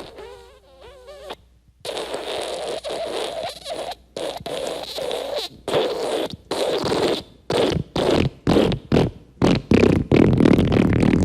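Wet fart sound effect: a short wavering squeak first, then a long run of wet, sputtering bursts with short gaps between them, coming faster and growing louder until they run together near the end.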